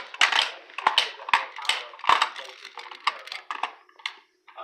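Small die-cast toy fire trucks clacking and knocking against each other and a hard tiled floor as a child handles them: a dozen or so sharp, irregular clicks and knocks, the loudest about two seconds in.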